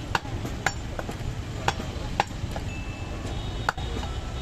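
Steel meat cleaver chopping goat meat on a wooden chopping block: about five sharp, irregular strikes, each with a brief metallic ring from the blade, over a steady low background rumble.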